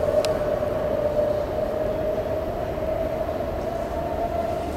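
BART train running with a steady whine over a low rumble, the whine rising slightly in pitch toward the end.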